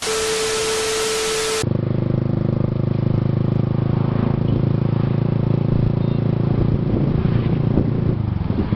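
A steady tone over loud hiss that cuts off abruptly after about a second and a half, then a motorcycle engine running at an even speed.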